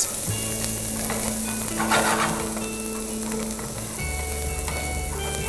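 Chopped onion sizzling in oil in a frying pan as a wooden spoon stirs it, with a louder swell of stirring about two seconds in.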